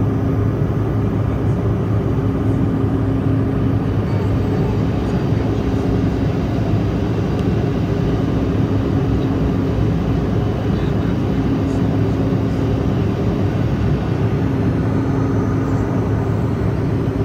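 Airliner cabin noise during the climb after takeoff: steady engine drone and rushing air, with a constant low hum and a couple of held tones.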